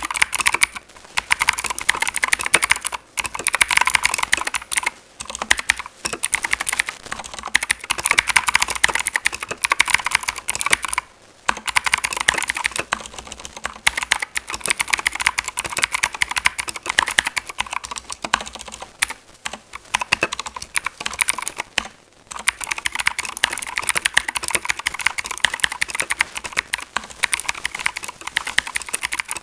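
Keychron K2 V2 mechanical keyboard with clicky blue switches, typed on in fast continuous runs of sharp clicks with a few short pauses.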